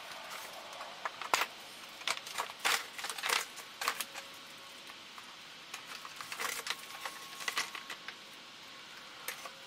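Front bumper cover of a Mercedes B-Class being pulled away from the car: a string of sharp clicks, snaps and rattles as its clips and fittings let go, in two bunches.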